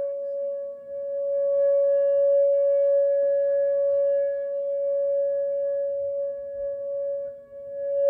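Whelen WPS 2910 electronic outdoor warning siren sounding a steady, unwavering tone, heard from inside a house. The tone swells and fades slightly and dips briefly near the end.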